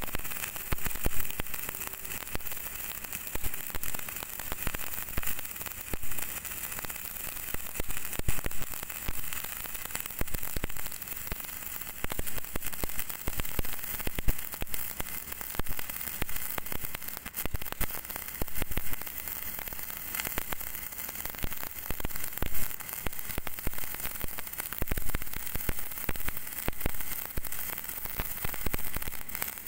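A MIG welding arc crackling continuously on steel, with frequent sharp pops through the crackle.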